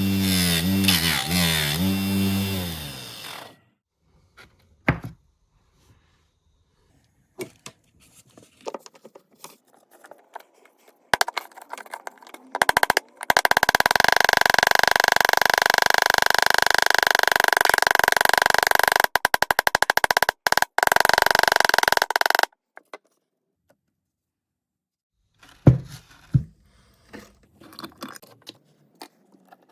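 A small power tool runs steadily for about ten seconds, stopping and starting briefly near its end, amid scattered clicks and knocks of metal parts being handled. At the start, a pitched sound with shifting tones fades out.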